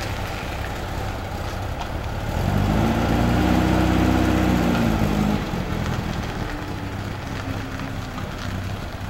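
Volkswagen Beetle's air-cooled flat-four engine running as the car drives off. About two seconds in it revs up, its pitch rising and then falling over some three seconds, before settling back to a steady, lower note.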